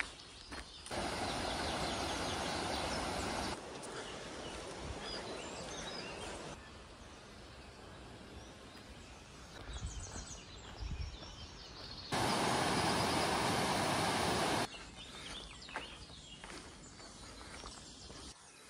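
Outdoor forest ambience while walking a dirt path: birds chirping and footsteps. A steady rushing noise cuts in sharply twice for a couple of seconds at a time.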